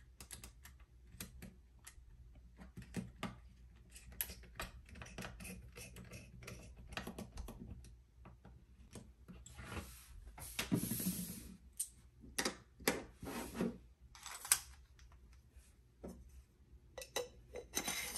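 Small clicks and ticks of a precision screwdriver turning screws in the plastic base of a computer mouse, followed by handling noise: a longer scraping rush about ten seconds in and several sharp knocks as the mouse and tools are set down on the table.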